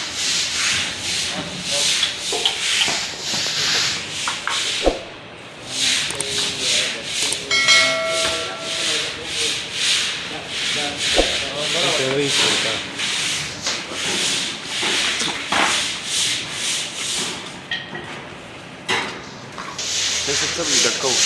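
A steel knife blade scraping in quick repeated strokes, about two a second, with two short pauses.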